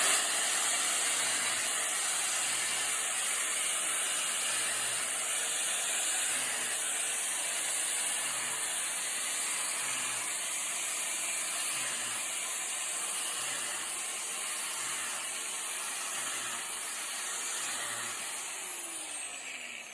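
Angle grinder fitted with a drill bit, running at high speed with a steady high whine while boring plug holes for mushroom spawn in a poplar log. It starts abruptly and spins down with a falling pitch near the end.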